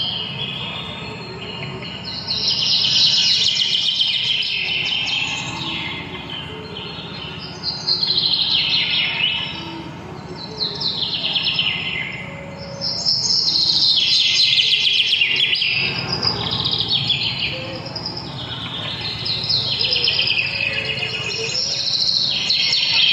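Birds chirping and twittering in dense, high bursts. Each burst falls in pitch over two or three seconds, and a new one starts every few seconds, over a faint low hum.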